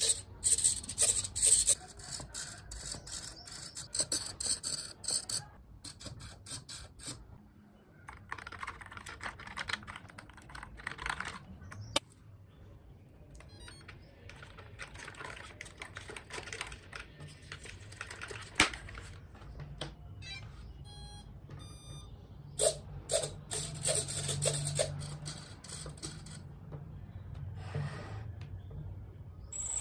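Emax 4.1 g digital micro servos whirring in short bursts, mixed with plastic clicking, as the control surfaces are worked from the transmitter, followed by handling clicks. About two-thirds of the way in, a short run of electronic beeps.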